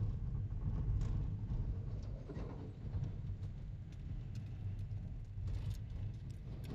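Wind buffeting the microphone of a moving motorcycle: a steady low rumble with a few faint clicks.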